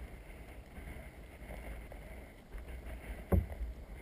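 Low wind rumble on the microphone over water around a canoe, with faint rustling of a plastic bag being handled, and one sharp knock a little past three seconds in.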